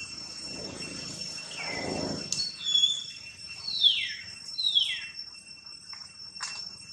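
Insects buzzing steadily at a high pitch, with a few short whistled calls over them, most falling in pitch and the loudest about four seconds in. A sharp click comes near the end.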